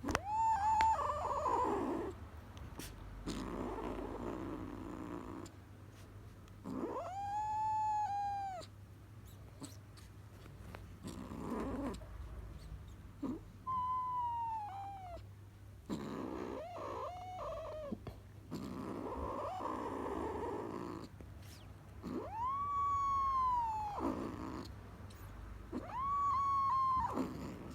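Kitten making about half a dozen drawn-out, arching yowls of a second or two each, with breathy, purring sounds between the calls.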